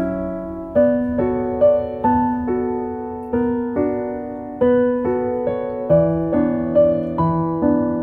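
Background piano music: single notes and chords struck one after another at an unhurried pace, each left to ring and fade.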